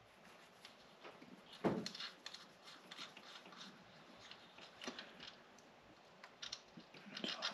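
Faint metal clicks and handling noises from a hand wrench working a nut loose, with one sharper knock about two seconds in.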